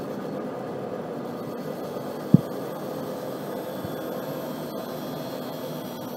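Tool and cutter grinder's wheel grinding a steel cutter while a Hafi 200D dust extractor draws at the wheel: a steady hum and hiss of the machines. One short low thump comes a little after two seconds in.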